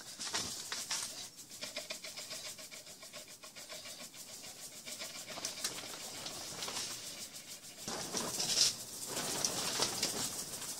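Dry, frozen-crumbled cannabis being shaken and rubbed across a window-screen sieve, a steady dry rustling and scratching that gets louder about eight seconds in.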